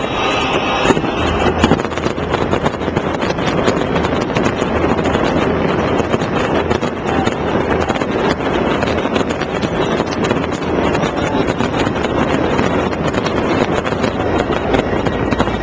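Fireworks going off in a dense, continuous barrage: overlapping bangs and rapid crackles over a low rumble, with no gaps.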